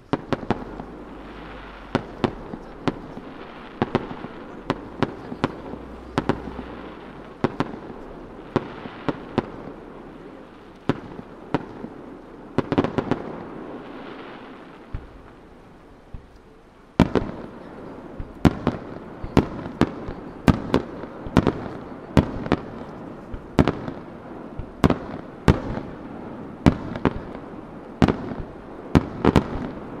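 Aerial firework shells bursting one after another in dozens of sharp bangs. The bursts thin out briefly a little past the middle, then a denser run starts abruptly and carries on to the end.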